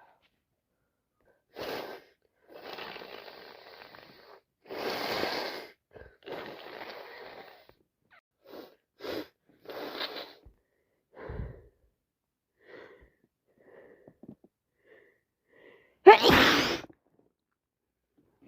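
A congested woman with a cold turned sinusitis huffs and sniffles, with a string of breathy sniffs and longer blowing breaths. It builds to one loud, wet sneeze near the end.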